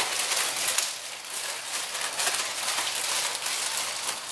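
A steady hiss with many small irregular crackles and ticks throughout.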